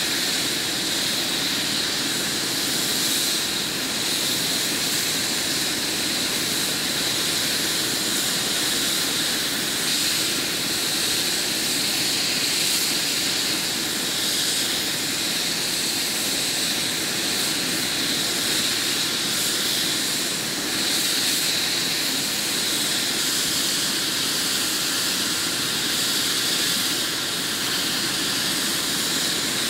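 Air-ambulance helicopter's turbine engine running steadily on the ground: a continuous high whine over a rushing hiss.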